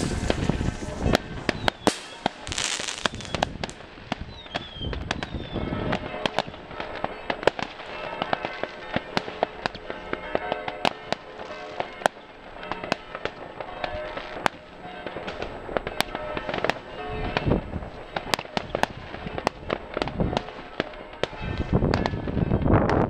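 New Year's fireworks going off all over a village: a dense, irregular run of sharp bangs and crackling reports from firecrackers and rockets at many distances, with a short hiss about two seconds in.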